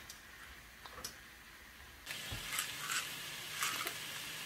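Pork belly frying in a stainless steel pan and stirred with a wooden spatula: quiet with a few light taps at first, then about two seconds in a steady sizzle starts, with the scrape of stirring strokes over it.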